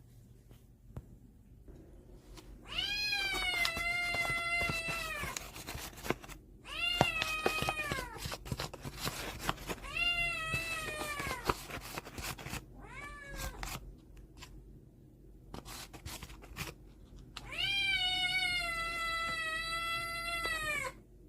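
Kitten meowing loudly, five drawn-out meows, each falling in pitch at the end; the first and last last about three seconds, the middle ones are shorter. Light clicks and knocks come between the meows.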